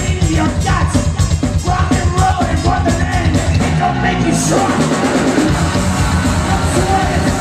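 Live rock band playing loud: electric guitars, bass and fast drumming, with a sung, shouted vocal. About four seconds in the vocal stops and cymbals wash over the band.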